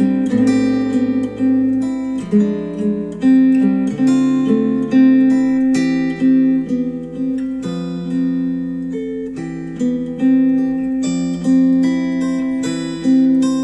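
Instrumental music of picked notes and chords, each ringing and fading, a new one about every half second, played back through KEF R3 bookshelf speakers driven by a NAD C 338 integrated amplifier.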